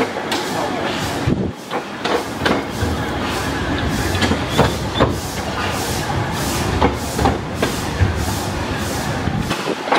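Narrow-gauge steam locomotive running along the track, heard from on board: a steady hissing exhaust beat with the wheels knocking and clicking over rail joints.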